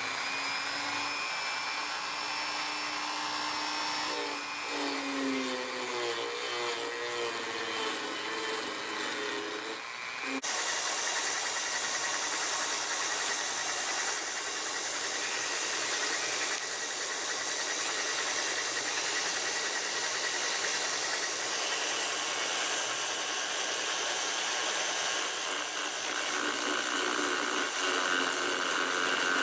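A power drill and a Dremel rotary tool running together, with the Dremel's straight-cut burr grinding metal from the inside of a spinning microscope ring adapter. It makes a continuous whine over a gritty grinding noise. The pitch shifts around the fifth second, and the sound changes abruptly about ten seconds in.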